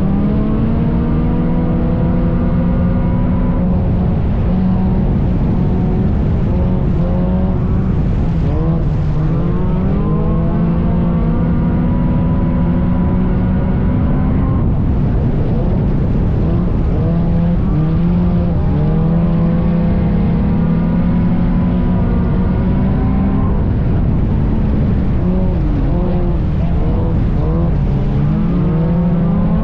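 Race car engine at high revs, its pitch climbing and then dropping back again and again every few seconds, typical of a car accelerating down the straights and lifting for the turns on a dirt oval. Loud, with a constant rumble underneath.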